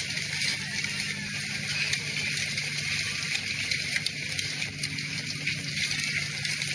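Squall wind with hail: a steady rush of wind noise peppered with many small sharp clicks of hailstones striking, over a steady low hum.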